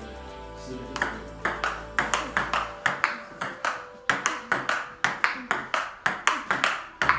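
Table tennis rally: the ball clicks sharply off the bat and the table in an even rhythm of about four hits a second, starting about a second in. Faint background music fades out in the first few seconds.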